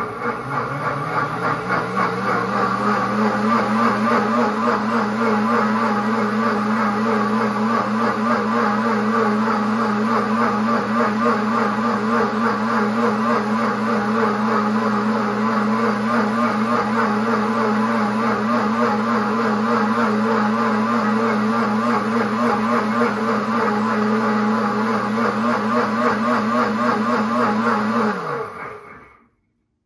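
Pampered Chef cooking blender's motor spinning up over about two seconds, rising in pitch, then running steadily with a fast warble. It winds down and stops a couple of seconds before the end. The jar holds soapy water in its heated wash cycle.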